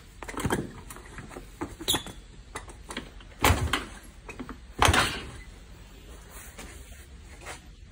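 Kick-starter of a Honda Lead 100 two-stroke scooter being kicked over without the engine firing, turning it over to check compression. Clicks and clunks, with two heavy kicks about a second and a half apart near the middle.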